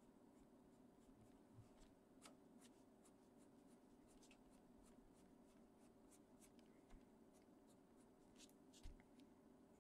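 Faint scratching of a Caran d'Ache Pablo coloured pencil on paper in short, quick, irregular strokes, flicking in feathers, over a low steady hum.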